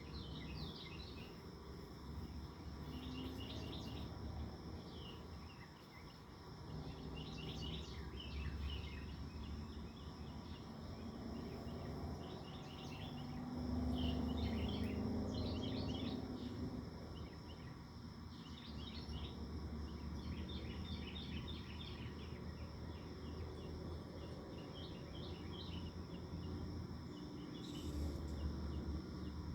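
Insects droning steadily, with a bird giving short bursts of rapid chirps every second or two, over a low background rumble.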